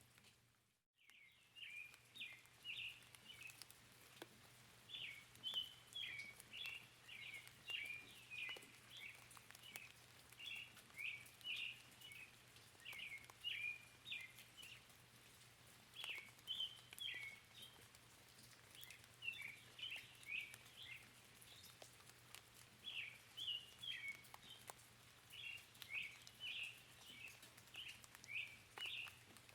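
Small birds chirping in quick, repeated high phrases, one after another, over a faint steady patter of rain. The whole track drops out briefly about a second in, then comes back.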